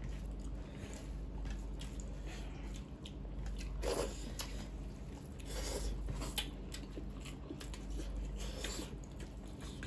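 Close-up eating sounds: chewing and squishing of rice and mutton curry eaten by hand, with small wet clicks from mouths and fingers in the food.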